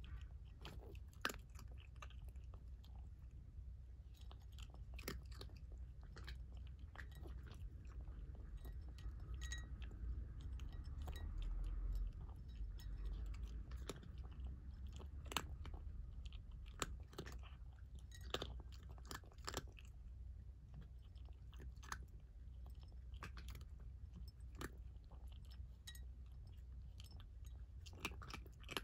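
Orange tabby cat eating, chewing and crunching what sounds like dry kibble in quick, irregular crunches.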